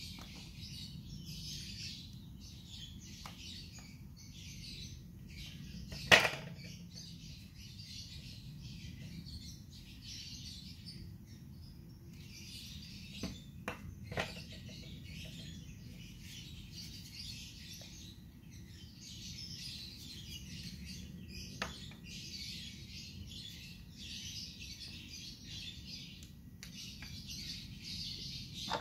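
Birds chirping continuously in the background, with a few sharp clicks and knocks of hard plastic Little Tikes toy food pieces being handled and set down on tile; the loudest knock comes about six seconds in.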